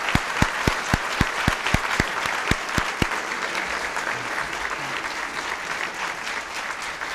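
Audience applauding steadily, with one set of louder claps standing out at about four a second for the first three seconds.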